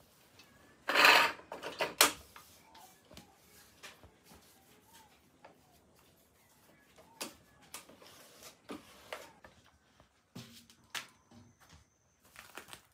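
Kitchen handling noises as cooked beef steak is taken out of the pan. A loud scrape comes about a second in, another short one near two seconds, then scattered light knocks and clinks of utensils and dishes.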